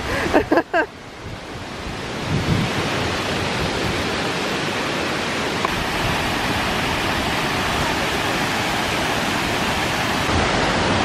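Small waterfall cascading over stepped rock ledges: a steady rushing of water that builds up over the first couple of seconds and then holds. A few short pitched sounds come in the first second.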